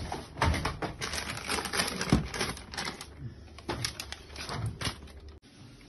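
Irregular clicks and knocks with paper rustling, from a printer-scanner's lid being worked and paper wrapping being handled. The sound cuts off abruptly near the end, leaving a few fainter clicks.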